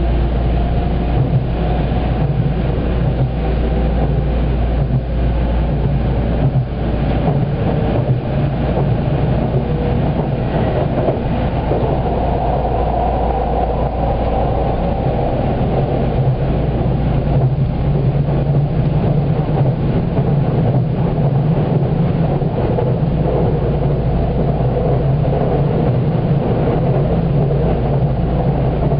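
Running noise inside the carriage of a Haruka limited express electric train as it accelerates from about 40 to 90 km/h. A steady rumble of wheels on rail carries scattered faint clicks, and a whine rises in pitch during the first few seconds.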